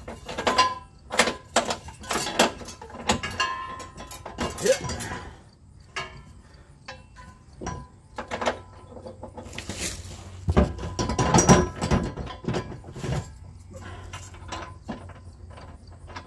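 Irregular metallic clanks, knocks and scrapes of a steel Curt receiver hitch and its bolts and nuts being worked into place against a car's underside, with a run of heavier knocks about ten to twelve seconds in.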